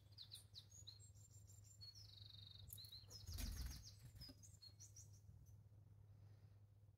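Faint, quick chirps and calls of small songbirds, one of them a short buzzy rattle, over a steady low hum. A soft low bump about three and a half seconds in.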